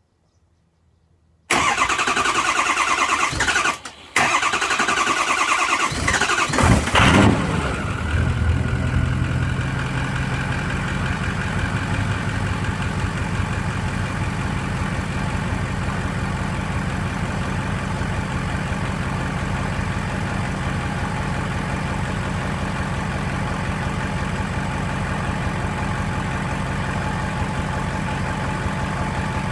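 Ford 6.0 Powerstroke V8 turbodiesel being cranked by its starter, with a short break in the cranking about two seconds in, then catching about five seconds in, flaring briefly and settling into a steady idle. It is a hard start, which the owner traced to too much fuel at startup in the engine tune.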